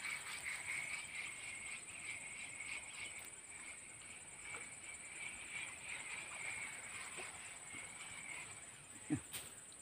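Insects chirring: a fast-pulsing chirr at one high pitch that fades out about eight and a half seconds in, over a thinner, higher steady buzz. A brief low sound and a click come near the end.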